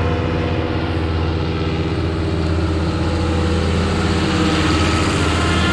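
John Deere tractor engine running steadily under load, driving a MacDon R116 disc mower through standing rye: a constant engine drone with a strong low hum.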